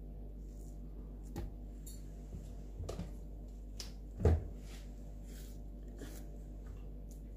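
A few light clicks and taps as a banana is sliced with a knife into a plastic blender jar, pieces dropping in, with one louder thump about four seconds in.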